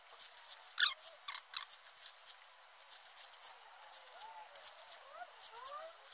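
Hand-turned valve seat cutter scraping the cast iron of a Ford flathead V8 block in short, sharp strokes, about three a second, as it recuts an exhaust valve seat pocket.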